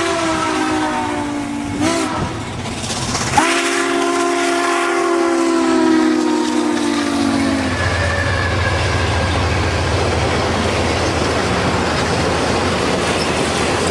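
Steam locomotive's chime whistle blown twice, a shorter blast and then a longer one, its chord sagging in pitch as the engine passes. After that comes the steady rumble and clatter of the trailing diesels and passenger cars rolling by on the rails.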